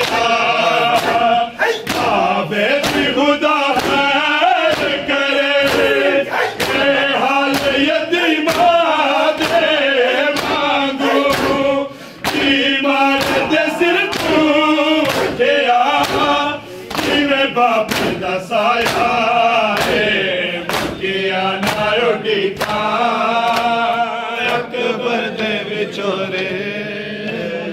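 A group of men chanting a Punjabi noha (mourning lament) together, with hands slapping on bare chests (matam) in a steady beat under the chant.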